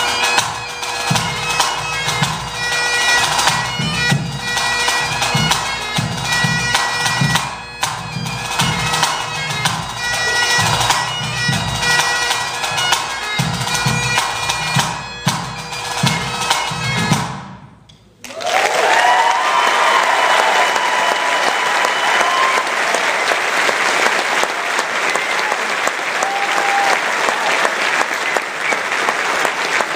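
Great Highland bagpipe playing a tune over its drones, with pipe-band snare, tenor and bass drums keeping a steady beat. The music stops about 17 seconds in, and the audience breaks into applause and cheering.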